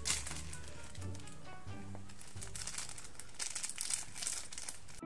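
Crinkling of the plastic wrapper on a packaged bread loaf as it is handled, over light background music.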